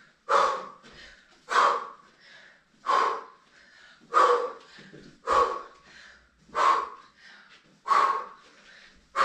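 A person breathing out hard in a steady rhythm, one short forceful breath about every 1.2 seconds, from the effort of fast-paced lunges.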